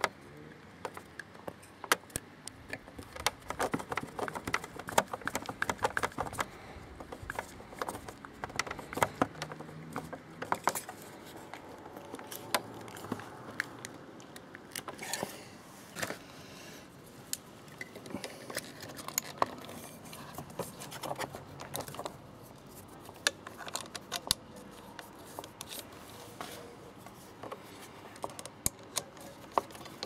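Irregular small clicks, taps and scrapes of hand work on a motorcycle turn signal lamp: a screwdriver turning the lamp's small screw and the plastic lamp, stalk and metal bracket being handled.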